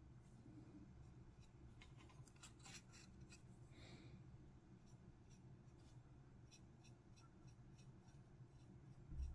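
Near silence: a faint steady low hum, with faint small ticks and scratches of a paintbrush and fingers working on a plastic miniature, and a soft low thump near the end.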